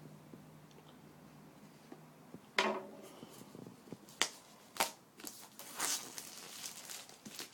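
Cardboard packaging of a new iPad being handled: a sudden loud knock or scrape a little over two and a half seconds in, then two sharp taps and rustling of cardboard and plastic.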